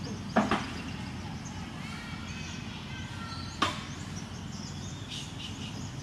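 Steady outdoor background noise with faint high chirps and two sharp knocks, about three seconds apart.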